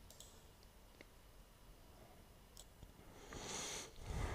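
Mostly near silence: faint room tone with a few soft clicks, then a brief breathy hiss about three and a half seconds in.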